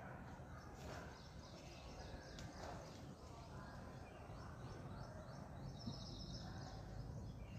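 Faint outdoor ambience with a steady low rumble and faint, high bird chirps scattered through it.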